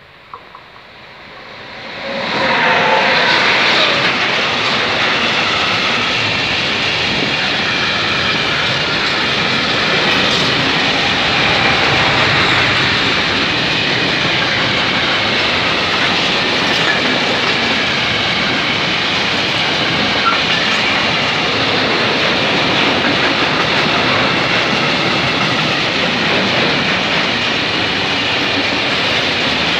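Freight train of high-sided open wagons rolling past at close range. The noise swells sharply about two seconds in, then stays loud and steady.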